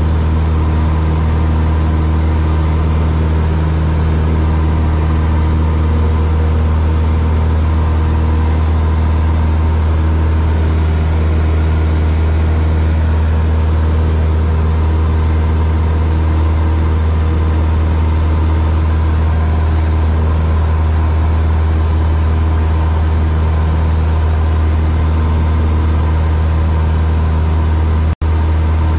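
Single-engine piston light aircraft's engine and propeller droning steadily in flight, heard from inside the cockpit as a constant low hum. The sound cuts out for an instant near the end.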